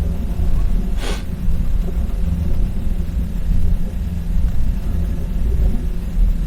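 Steady low rumble with a hum, and one short sharp click-like noise about a second in.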